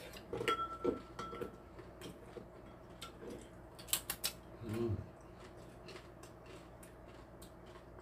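Eating sounds at a table: chopsticks and spoons clicking against bowls of mulhoe (cold raw fish soup) and chewing, with the sharpest clicks about four seconds in. A brief hum-like voice sound comes about a second in and again around five seconds.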